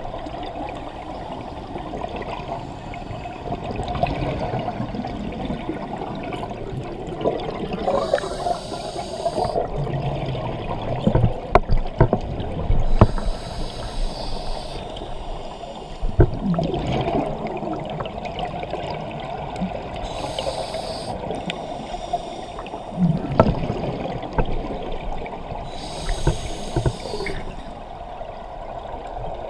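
Scuba diver breathing through a regulator underwater: a hissing inhale every several seconds, alternating with gurgling rushes of exhaust bubbles.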